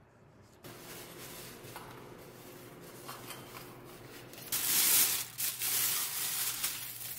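Packaging rustling and crinkling as a pendant lamp's shade, wrapped in a white protective sheet, is pulled out of its cardboard box; quiet handling at first, loudest from about four and a half seconds in.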